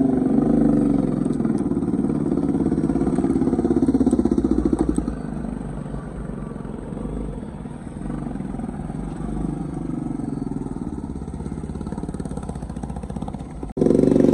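Motorcycle engine running under way, louder for the first few seconds and then easing off about five seconds in. It drops out briefly near the end and comes back louder.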